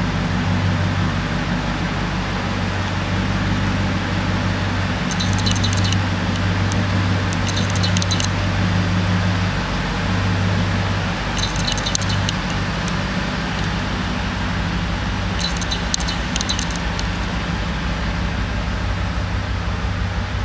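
The truck's 454 cubic-inch V8 idling steadily at a standstill, with four brief spells of faint, fast high ticking.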